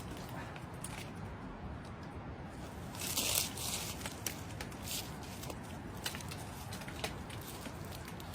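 Footsteps and scrambling over loose dirt, gravel and dry brush while climbing down a steep bank, with scattered crunches and clicks and a louder scrape about three seconds in.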